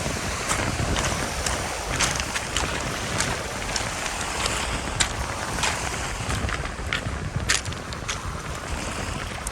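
Wind buffeting the camera's built-in microphone: a steady rush with heavy low rumbling and scattered small clicks.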